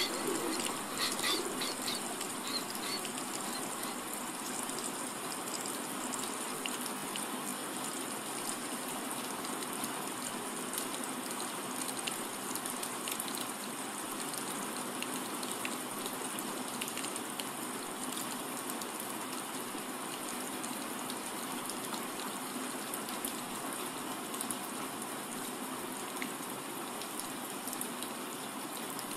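Steady rain, an even rushing hiss. A few short bird chirps sound in the first couple of seconds.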